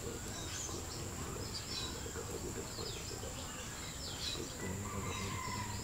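Small birds chirping, many short scattered calls, over a steady high-pitched whine from insects.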